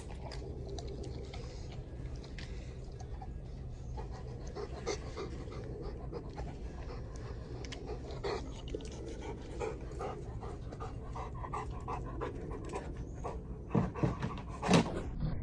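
A dog panting steadily over a low background hum, with a few louder knocks or thumps near the end.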